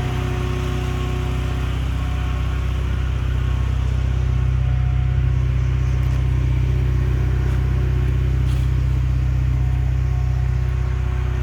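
Fiat Palio 1.2's four-cylinder petrol engine idling steadily with the air conditioning running.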